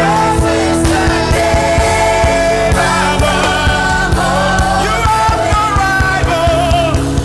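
Live gospel worship music: a band with drums and sustained chords, with voices singing over it.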